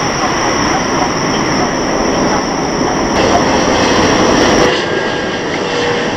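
Loud, steady rumble of Boeing 777 GE90 jet engines as a 777 freighter rolls out on the runway after landing. About three-quarters of the way through, the sound changes abruptly to the steady engine noise of a Boeing 777-300ER on final approach.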